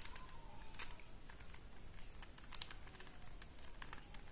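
Light, irregular plastic clicks of a QJ Super Square-1 puzzle cube being turned by hand, its layers turning awkwardly.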